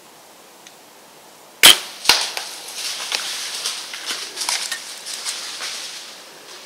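A bow shot at a deer: the sharp crack of the bowstring's release, then about half a second later the smack of the arrow striking the buck. The buck then crashes away through brush and dry leaves for several seconds, the noise fading.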